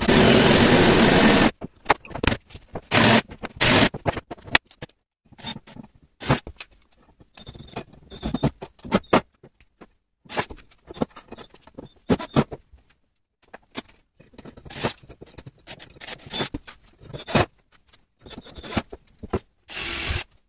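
A compact cordless circular saw cutting through a board, cutting off abruptly about a second and a half in. After that, scattered clicks, knocks and scrapes of parts being handled and fastened on a workbench.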